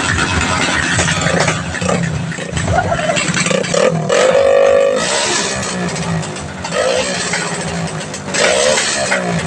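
Rusi Korak 110cc motorcycle engine with an open exhaust pipe, loud and revved up and down several times.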